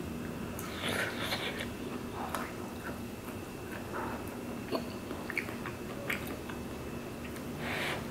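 Close-up mouth sounds of chewing spicy tteokbokki rice cakes, with light clicks of metal chopsticks against the pan. There are soft puffs of breath through pursed lips, about a second in and again near the end, as she copes with the chilli heat.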